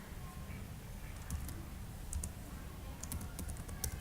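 Computer keyboard keys clicking in short runs of keystrokes, someone typing a command, over a low steady hum.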